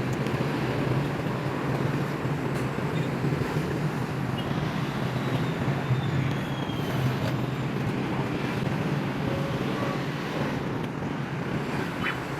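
Steady city traffic noise: a continuous low rumble of vehicles and tyres, with a faint brief click near the end.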